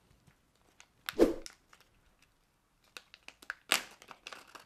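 Small packaging bags crinkling and tearing as they are opened by hand, in scattered rustles with a louder one about a second in and a run of quick crinkles over the last two seconds.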